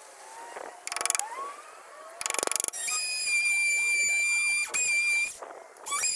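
Oscillating multi-tool with a flush-cut blade trimming Douglas fir wood plugs flush with a table leg. It gives two short bursts, then runs with a steady high whine, stops briefly near the end and starts again.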